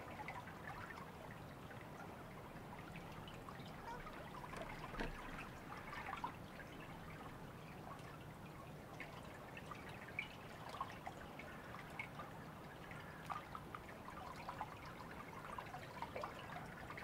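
Faint trickling water with irregular small drips and ticks.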